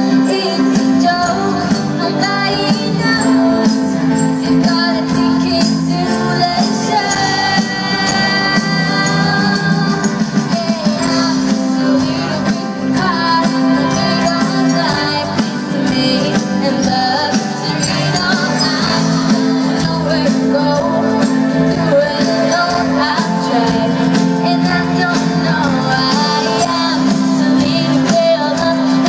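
Live pop band playing, loud and steady, with a female lead vocal over keyboards and a steady bass line.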